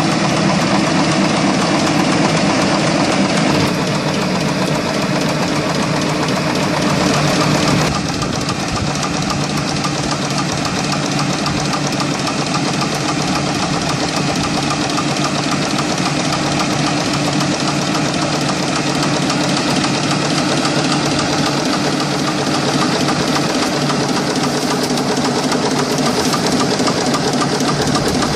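Engine of a tractor or orchard machine running steadily; its sound shifts abruptly about four seconds in and again about eight seconds in.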